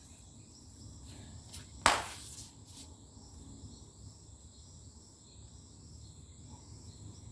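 Faint, steady, high-pitched insect chirring, with one sharp knock about two seconds in.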